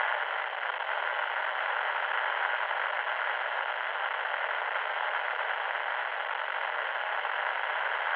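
Steady static hiss, thin and radio-like, with no change throughout.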